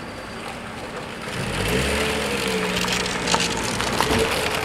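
A motor vehicle getting louder as it passes, its engine rising in pitch about a second and a half in, with a couple of sharp knocks.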